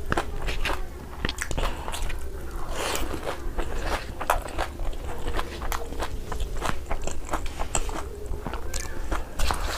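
A person crunching and chewing food close to the microphone: a dense, irregular run of crisp crunches and clicks.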